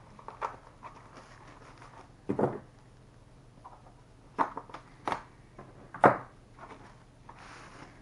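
Scissors snipping through the packaging sleeve of a keyboard wrist rest, with light rustling and handling knocks. There are three sharp snips about a second apart in the second half, and a short papery rustle just before the end.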